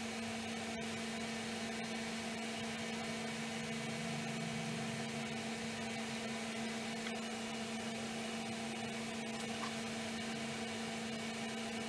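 Steady machine hum with a constant low tone and a faint even hiss, unchanging throughout, with no distinct handling sounds.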